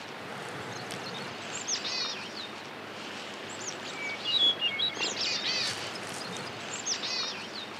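Small birds chirping in short, high, repeated phrases about once a second, over a steady background hiss.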